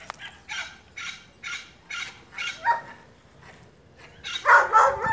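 A dog barking in a quick series of short barks, about two a second, then a pause and louder, longer barks near the end.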